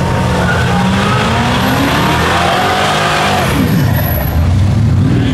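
A tuned car's engine revving hard. Its pitch climbs over the first few seconds and then falls away sharply past the middle.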